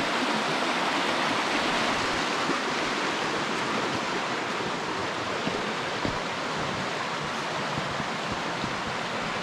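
Shallow, fast-flowing river rushing over rocks: a steady noise of water that fades a little as it goes on.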